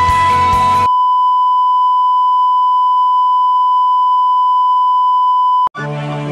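Television test tone, the steady single-pitch beep that goes with colour bars, cut off abruptly. Rock music runs under it for about the first second, and softer music starts just after it stops, near the end.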